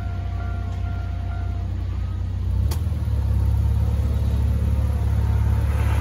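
Low engine and road rumble heard inside a car's cabin as the car waits at the level crossing and then moves off. There is a sharp click about two and a half seconds in, after which the rumble grows louder as the car pulls away.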